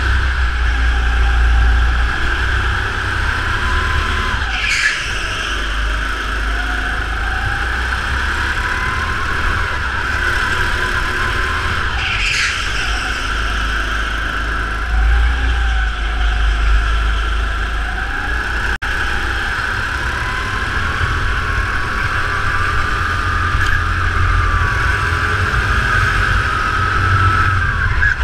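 Racing kart heard from onboard, its engine note rising and falling with the throttle through the corners, and two short tyre squeals about five and twelve seconds in.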